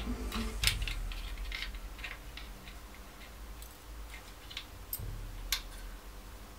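Scattered light clicks and taps of small plastic parts being handled and fitted into a venetian blind's headrail, a few of them sharper than the rest.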